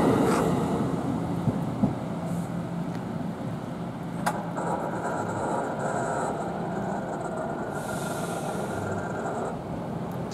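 NJ Transit Multilevel train pulling away past the grade crossing, its rail noise fading. About four seconds in there is a click, then a steady higher tone for about five seconds while the crossing gates rise.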